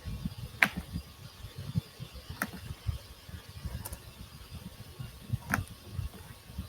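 Computer mouse clicking, four sharp single clicks spaced about a second and a half apart, over a low irregular rumble.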